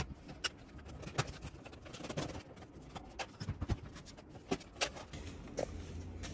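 Irregular plastic clicks and knocks as the dashboard trim panel around a B8.5 Audi S4's instrument cluster is pried loose with a plastic trim tool.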